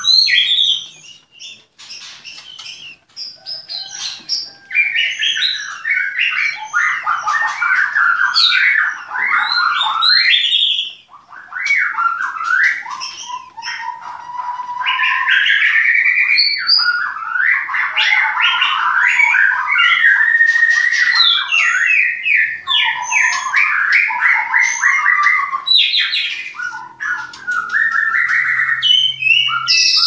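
White-rumped shama (murai batu) singing long runs of loud, varied whistled phrases that glide up and down, with quieter pauses about a second in and again around the middle.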